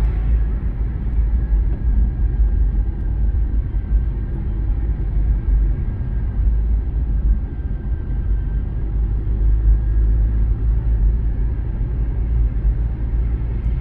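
Steady low rumble of a car driving along a street, engine and road noise heard from inside the cabin.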